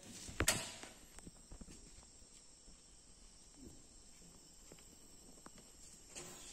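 A single sharp click about half a second in, then faint scattered ticks and light taps over a quiet background; no machine is heard running.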